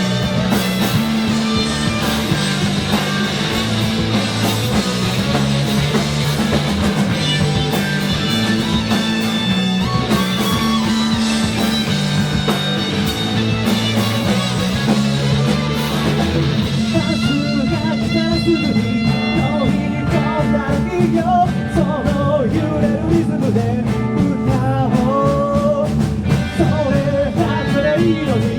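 Live rock band with electric guitars, bass and drums playing a song at full volume. About seventeen seconds in the dense wall of sound thins, and a wavering lead line stands out over the bass and drums.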